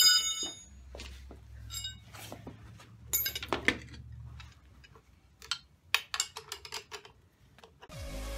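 Steel parts of a coil spring compressor and strut assembly clanking and clinking as they are handled, opening with a loud ringing metal clank and followed by scattered knocks and clicks. Electronic background music comes in near the end.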